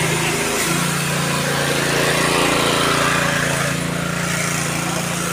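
A steady motor hum under a broad hiss, with a brief dip in the hum about half a second in.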